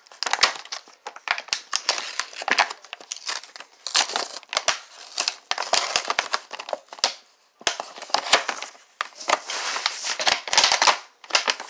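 Plastic packaging crinkling and rustling in stop-start bursts as it is handled and pulled open, with many sharp clicks and snaps.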